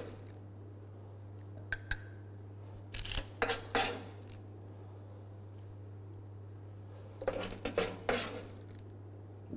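Metal spoon scraping and tapping on a parchment-lined metal baking tray while gathering oven-dried tomatoes, in two short bursts of clatter about three and seven seconds in, with a couple of light clicks before them. A steady low hum runs underneath.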